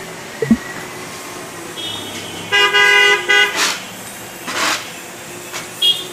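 Vehicle horns honking in street traffic: a short high toot, then a loud honk broken into two blasts, and another short high toot near the end, over a steady street din. Two short hissing rushes follow the loud honk.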